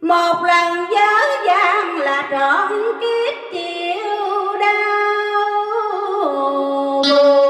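A woman singing a vọng cổ (Vietnamese cải lương) line over a karaoke backing track, her voice bending and gliding between long held notes.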